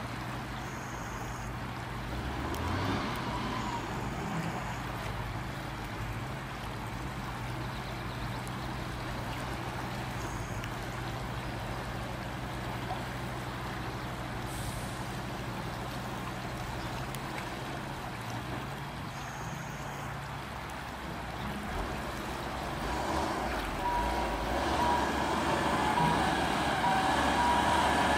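Diesel engine of a Tatra dump truck running steadily, then growing louder over the last few seconds as the truck drives into a shallow river, with water rushing and splashing around its wheels near the end.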